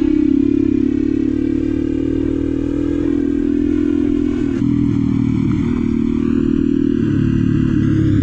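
Small single-cylinder four-stroke engine running hard at steady high revs while under way. Its pitch steps up a little about two-thirds of the way through and again near the end.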